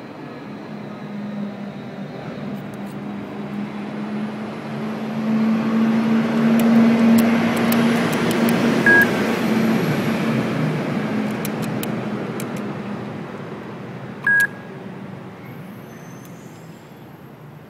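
A passing road vehicle, a low droning rumble that swells to a peak midway and then fades. Over it come two short, high single-tone beeps from the call box keypad, about five seconds apart.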